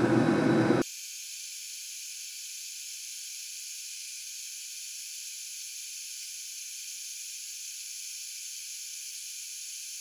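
A diesel heater runs steadily for under a second, then the low end drops out abruptly, leaving only a steady, even high hiss with nothing lower in it.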